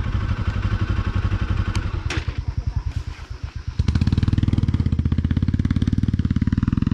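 Motorcycle engine running under way with a fast pulsing beat. It eases off for about a second around the middle, then comes back louder. A couple of sharp clicks sound about two seconds in.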